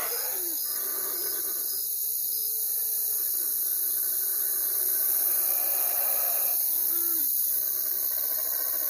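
Night chorus of crickets and other insects, steady and high-pitched, with two short low owl hoots, one at the very start and one about seven seconds in.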